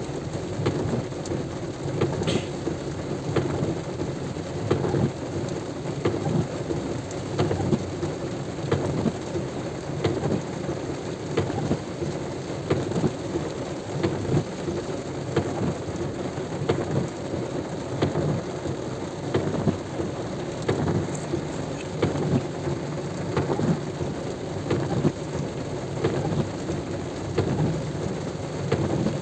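Heavy rain pelting a surface close to the microphone, with many sharp drop hits over a steady low rumble.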